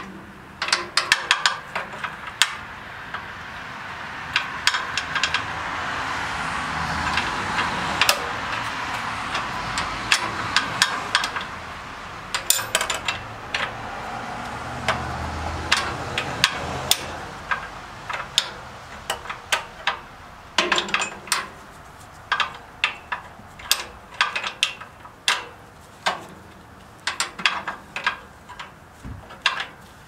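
Sharp metallic clinks and clicks of a box wrench being fitted and turned on an engine's oil drain plug, dozens of them at irregular intervals. A broad swell of background noise rises and fades through the middle.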